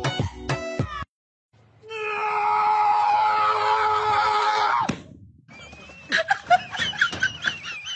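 A loud scream held for about three seconds that cuts off suddenly. It comes after a few plucked music notes and a short gap, and is followed by fainter clatter and a high wavering tone.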